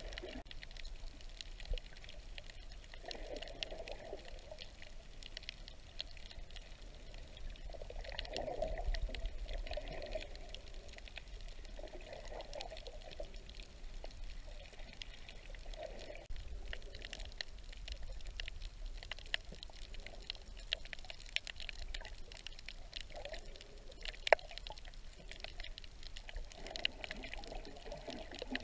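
Underwater ambience recorded by a submerged camera: muffled water sloshing and bubbling that swells every few seconds, with scattered faint crackling clicks and one sharper click near the end.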